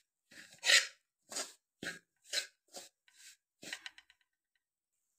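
A metal spatula stirs semolina roasting in ghee and scrapes against the bottom of a steel pot. There are about eight short scraping strokes, roughly two a second, which stop about four seconds in.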